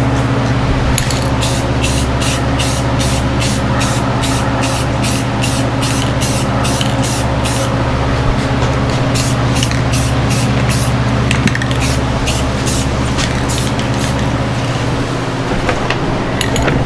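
Aerosol can of gloss spray paint hissing in rapid, regular short bursts, about three a second, as a coat goes onto metal. A steady low hum runs underneath.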